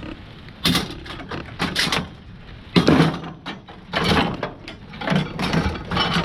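Irregular knocks, clanks and scrapes of scrap being worked by hand, about one every second.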